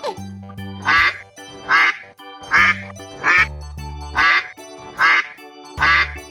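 Seven duck quacks in a regular rhythm, about one every 0.8 seconds, over children's background music with a pulsing bass line.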